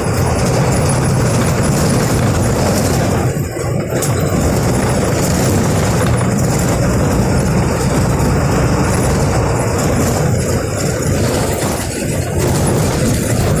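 Diesel engine of a Volkswagen 17.210 EOD bus chassis running steadily and loud, with a low, even drone; the sound dips briefly about three and a half seconds in and again near the end.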